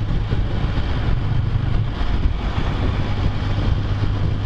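Can-Am Spyder F3's three-cylinder engine running steadily at cruising speed, with wind rushing over the helmet-mounted microphone.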